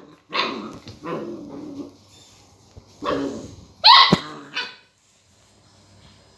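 Border collie puppy barking in short bursts, about five barks, the loudest about four seconds in, then falling silent; it is barking at a piece of lemon, a new and unfamiliar object.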